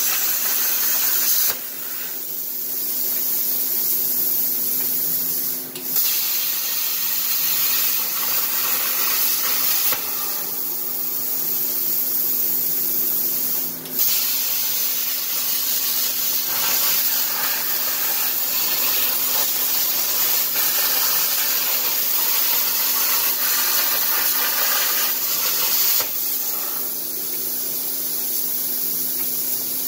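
Plasma cutter's machine torch (Everlast PowerPlasma 60) cutting sheet metal on a CNC table: a loud, steady hiss of arc and air. It drops away when the arc stops between cuts and comes back with a sharp pop when the next cut fires, twice, then stops near the end. A steady hum from the downdraft blower runs underneath.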